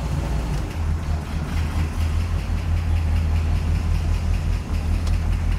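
1978 Corvette's 350 small-block V8 running at a steady idle, freshly started after sitting 20 years, with an even low pulse; the driver feels it may be missing slightly.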